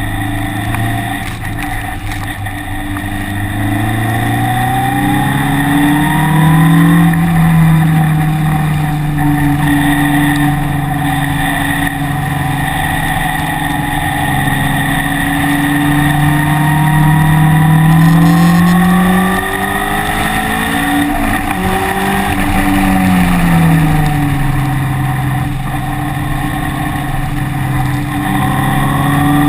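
Vehicle engine heard on board during a lap of a wet race circuit. It climbs in pitch over a few seconds and holds a high, steady note for about ten seconds. Around twenty seconds in it drops, picks up briefly, drops again, then climbs once more near the end.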